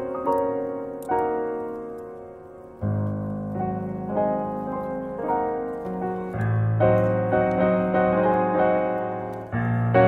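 Background piano music: a gentle melody over sustained chords, with a fresh low chord struck about three seconds in and again about six and nine and a half seconds in.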